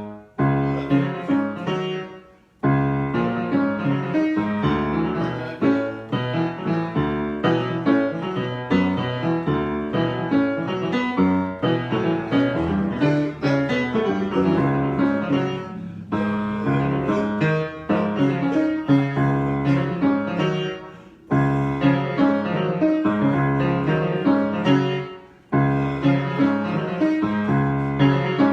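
Piano being played in a free improvisation, a continuous stream of notes and chords broken by short pauses about two and a half seconds in, at about twenty-one seconds and at about twenty-five seconds.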